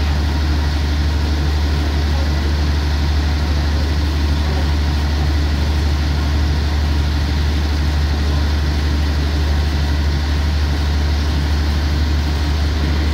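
Diesel-hauled passenger train standing at the platform with its engine idling: a steady low hum that does not change.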